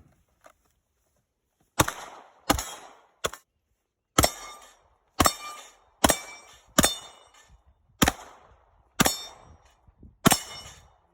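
Pistol shots fired one at a time, about ten at an uneven pace of roughly one a second, each with a short ringing tail.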